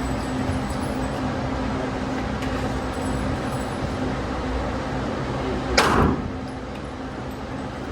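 A single gunshot about six seconds in, a sharp crack with a short echo, over a steady low hum in an indoor shooting range.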